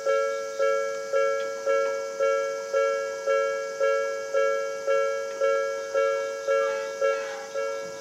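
Japanese railway level-crossing warning bell ringing steadily, about two strikes a second, each a two-tone ding that dies away before the next. The crossing is active, warning of an approaching train as its barrier lowers.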